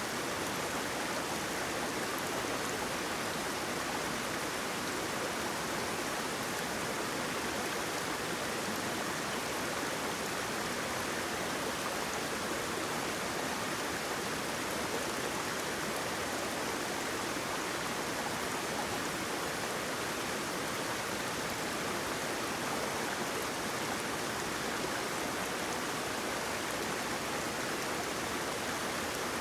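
Waterfall: flowing water rushing steadily as an even hiss, with no single splashes or pauses standing out.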